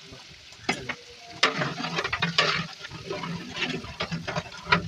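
Long-handled metal ladle stirring a large aluminium pot of liquid mutton curry, sloshing the liquid and scraping and clinking against the pot. The scrapes and clinks come irregularly, starting about a second in.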